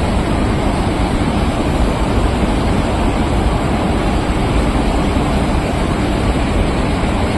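Water pouring out through a dam's open flood gates, a loud steady rush without a break.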